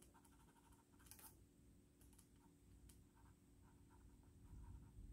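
Faint rubbing and scratching of a graphite pencil and its cap eraser on paper, in short strokes, with a sharper scratch about a second in.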